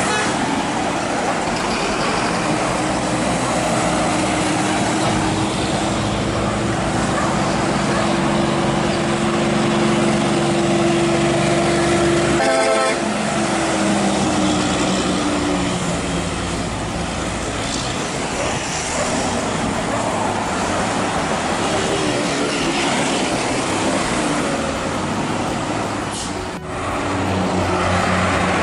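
Heavy diesel tractor-trailers and cars passing close by on a highway: engine drone over constant tyre and road noise, with a short horn toot about halfway through.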